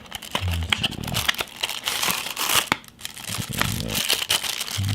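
Product packaging being opened by hand: irregular crinkling and rustling with some tearing.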